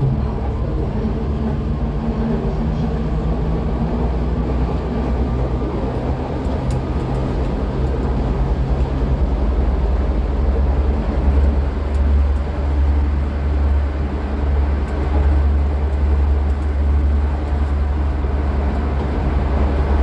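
Leoliner tram's electric traction drive running under way, with a steady low hum and a faint, slowly rising whine of the motors. The low hum grows louder about halfway through.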